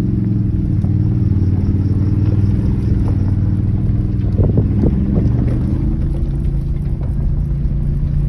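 Ford vehicle's engine running steadily while driving off-road, with a few knocks and rattles about halfway through and a slight change in the engine note near the end.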